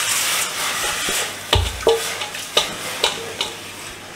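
Washed mung dal sliding and splashing out of a steel bowl into a pot of water. The steel bowl then knocks against the pot's rim about five times, sharp metal clinks, some ringing briefly, as the last of the dal is shaken out.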